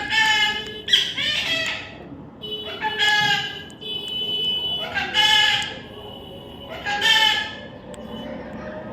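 Baby parrot calling repeatedly: about five drawn-out calls, one to two seconds apart, one trailing into a held steady note.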